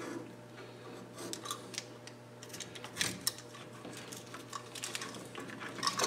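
Irregular small clicks, scrapes and rustles of a sheathed electrical cable's plastic jacket being cut and stripped with a hand tool at a plastic switch box.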